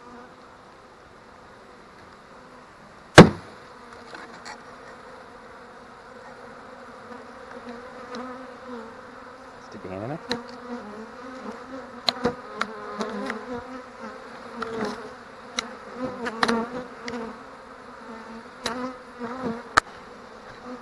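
A single sharp knock of the wooden bee package box about three seconds in, shaking the bees down inside it. Then honey bees buzzing, louder from about halfway as the box is opened and loose bees fly close by, each passing buzz rising and falling in pitch, with scattered light clicks.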